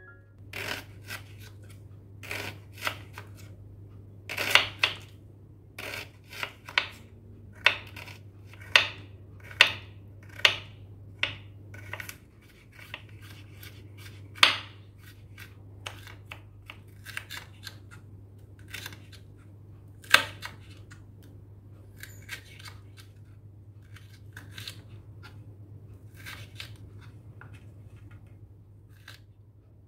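Kitchen knife chopping onion and chillies on a wooden cutting board: irregular knocks of the blade striking the board, louder and more spaced in the first half, lighter and quicker later. A steady low hum runs underneath.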